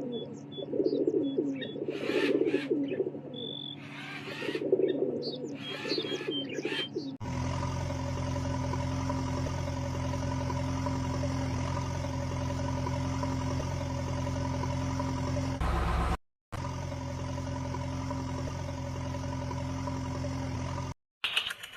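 Birds calling, low warbling calls with some high chirps, for about the first seven seconds. Then a steady motor hum starts and runs evenly, cut off briefly twice.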